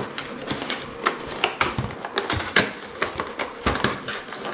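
Cardboard food box and its paper lining crinkling and rustling in the hands, with a quick irregular run of small clicks and crackles, as a foil tray is worked out of the box.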